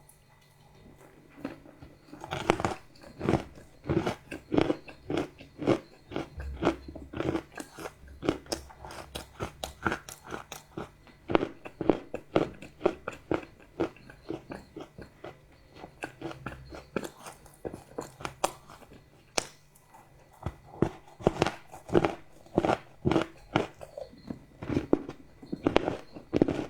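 Someone chewing crunchy chocolate: a dense run of sharp crunches, several a second, starting about two seconds in.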